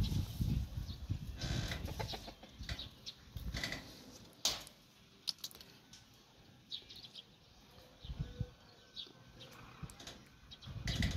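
Domestic chickens, a rooster and hens, foraging: scattered short clucks and peeps with scratching and pecking on the ground, and a sharp click about four and a half seconds in. Bursts of low rumble come in the first two seconds and again near the end.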